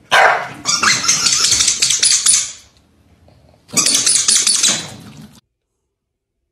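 Two corgis play-fighting on a tile floor, making two harsh, noisy bursts of sound, the first lasting over two seconds and the second starting near the four-second mark and ending suddenly.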